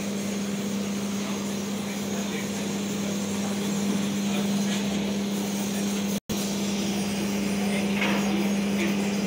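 Factory floor noise: a steady machine hum and ventilation drone, with a few faint clicks near the end. The sound cuts out for an instant a little past six seconds in.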